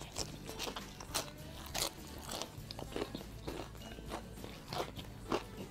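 Close-up crunching and chewing of crispy KFC fried chicken, the breaded coating breaking in a quick, irregular run of sharp crunches.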